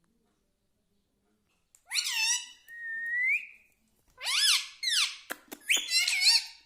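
Indian ringneck parrot calling. Starting about two seconds in it makes a squawky call that ends in a rising whistle, then from about four seconds a quick run of chattering calls mixed with sharp clicks.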